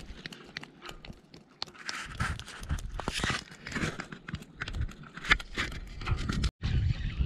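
A freshly landed horse mackerel flapping on a concrete pier: irregular light slaps and taps of its body and tail on the concrete. The sound cuts out briefly near the end.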